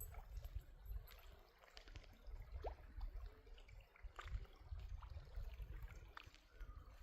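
Faint water trickling and dripping around a kayak, with scattered small ticks. A low, fluttering wind rumble runs underneath, and there is one brief rising chirp about three seconds in.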